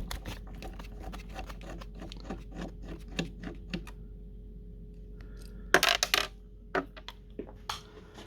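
Small repeated clicks and scrapes of a Phillips screwdriver turning a screw out of a fridge door's damper fitting, then a brief louder clatter of small hard parts about six seconds in. A steady low hum sits underneath.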